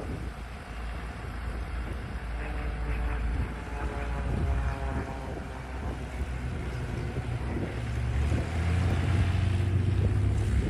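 Ranger 6-440 inverted inline six-cylinder engine of a Fokker D.VII replica biplane running with its propeller, a steady low drone that grows louder near the end.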